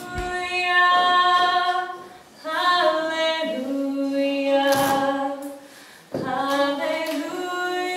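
A group of voices, children's and a woman's, singing unaccompanied in long held notes, in three phrases with short breaks about two and six seconds in.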